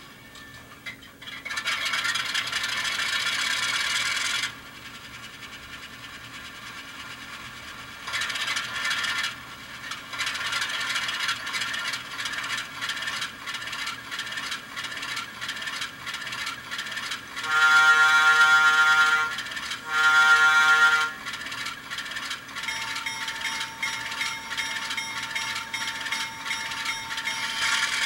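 Digital diesel locomotive sound from an ESU LokSound Micro decoder playing through a tiny 8 x 12 mm speaker in an Atlas N-scale Alco RS3: the engine sound comes in and runs with a rhythmic chatter, then two loud horn blasts sound about two-thirds of the way in, and a steady tone joins the engine sound near the end. The small speaker gives it a thin, tinny sound.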